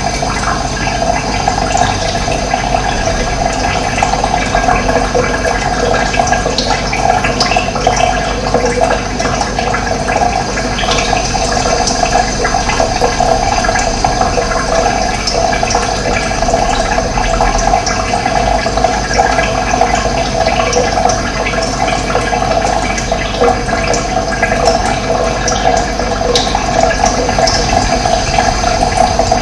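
Running water rushing steadily, close to the microphone, with a dense gurgling fullness in the lower middle.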